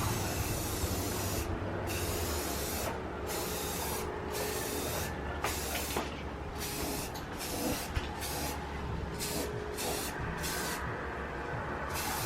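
Aerosol spray-paint can sprayed in about a dozen short bursts, each a hiss that starts and stops sharply, the bursts getting shorter and quicker toward the end.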